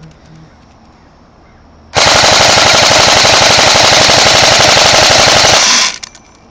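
Ares G36 airsoft electric rifle on a 7.4 V LiPo battery firing one long full-auto burst of about four seconds, starting about two seconds in: a rapid, even rattle of the gearbox cycling, stopping sharply near the end.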